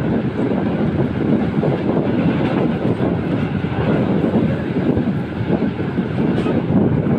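Passenger train running along the line, heard from an open window of the coach: a steady rumble of wheels on the rails.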